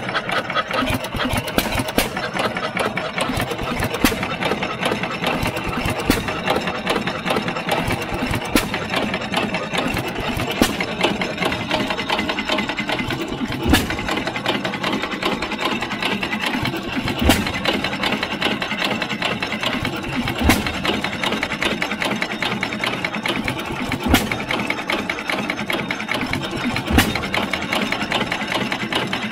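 1914 Fuller & Johnson 6 horsepower hit-and-miss gas engine running: steady mechanical clatter from the valve gear as the flywheels turn, with a louder sharp firing stroke every few seconds.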